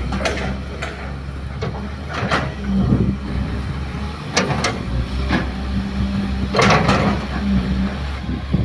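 Kobelco hydraulic excavator's diesel engine running steadily, with about five short, sharp clanks and scrapes from the digging and loading of soil.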